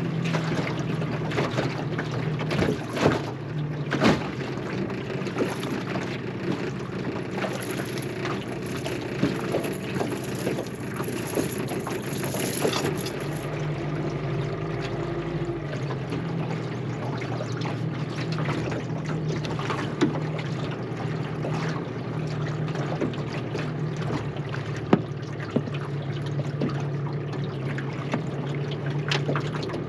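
Small tiller outboard motor on an aluminium dinghy running steadily at low trolling speed, with water rushing and splashing along the hull. A few sharp knocks stand out over the steady hum.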